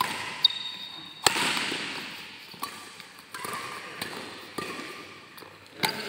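Badminton doubles rally: about six sharp racket hits on the shuttlecock, roughly one every second or so, each echoing in the hall. A brief high squeak comes about half a second in.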